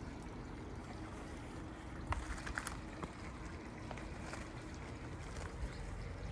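Water trickling steadily into a garden pond, with a few small clicks about two seconds in.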